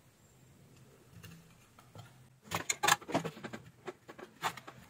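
Handling noise from a power-supply circuit board being turned over and set down on a workbench: a quick cluster of small knocks and clicks about halfway through, and another knock near the end.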